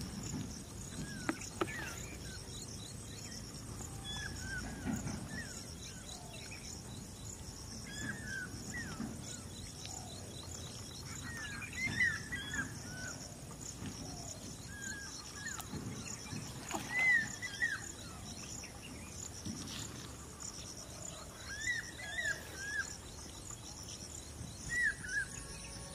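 Birds calling in short, quick chirps that come in small clusters every few seconds, over a steady high buzz of outdoor ambience.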